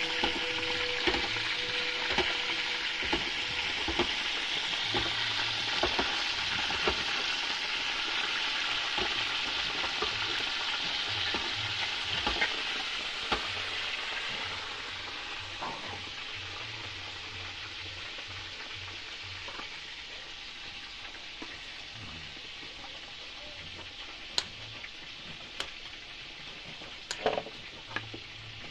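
Steady sizzling hiss from a pot heating over a wood fire, louder in the first half and quieter after about halfway. A few sharp clicks come near the end.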